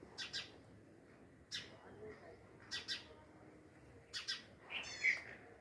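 A bird chirping: short, high double chirps repeated about every second and a half, with a quick rattling trill near the end.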